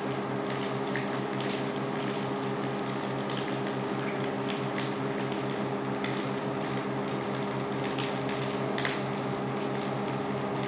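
Induction cooktop running at high power with a steady electrical hum and fan noise, while fried rice cooks in the wok on it with a faint sizzle and an occasional small crackle.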